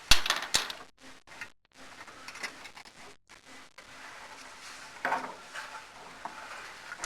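Knocks and scraping of an inspection camera and its pole bumping and rubbing against the masonry flue at the chimney damper. A sharp cluster of knocks at the start is the loudest, with lighter scraping later and another burst about five seconds in.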